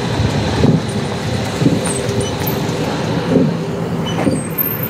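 Electric street tram running along its rails close by, a steady hum over general city street noise.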